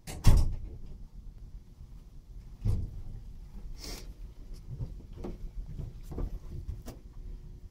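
Quiet room with a sharp thump just after the start, a second smaller thump about two and a half seconds in, a brief rustle around four seconds, and faint scattered shuffles and clicks.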